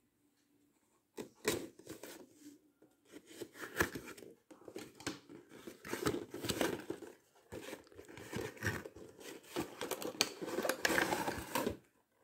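Unboxing a cardboard action-figure box: scissors slit the seal, then the box flap is opened and the cardboard backdrop and clear plastic clamshell tray are slid out, giving irregular rustling, scraping and crinkling that starts about a second in and is loudest near the end.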